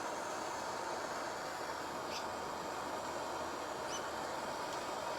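Steady hiss of a gas torch flame heating solder on a car heater core, with a couple of short, high bird chirps about two and four seconds in.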